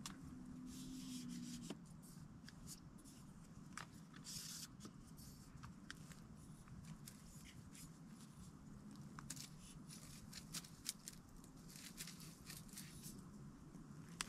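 Faint rustling with scattered small clicks and scrapes of hands handling gear: a camera being fitted and adjusted on a tripod.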